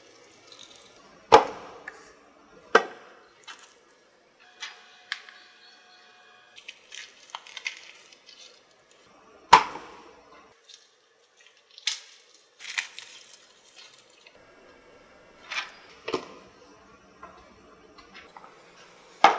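Kitchen clatter: sharp knocks and clinks of dishes and utensils, spaced a few seconds apart, with a brief ringing note about five seconds in.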